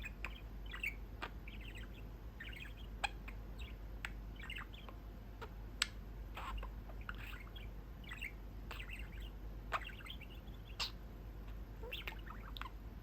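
Pet budgerigar (budgie) chattering and warbling in a continuous string of short, quick chirps, with a few sharp clicks in between.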